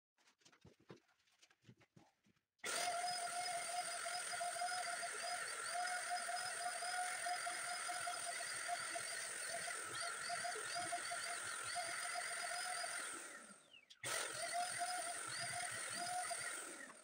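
Handheld cordless electric paint sprayer running with a steady whine and hiss of spray, starting about two and a half seconds in. It stops briefly near the end and starts again.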